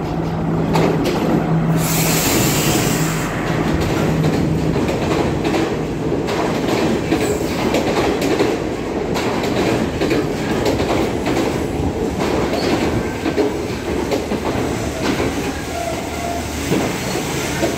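A Class S14 diesel multiple-unit train pulls slowly into the station. Its engine hums steadily at first, with a brief hiss about two seconds in. Then the carriages rumble and clatter past with wheel and rail noise.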